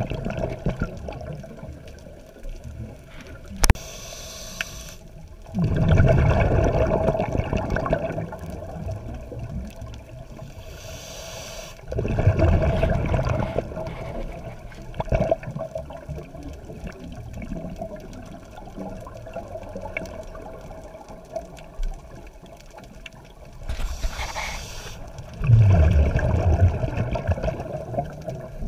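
Scuba diver breathing through a regulator underwater: three slow breaths, each a short hissing inhale followed by a longer spell of bubbling exhaust.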